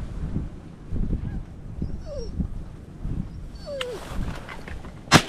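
Hunting dog whining twice in short falling whimpers while ducks come in to the decoys, then a single loud shotgun shot near the end.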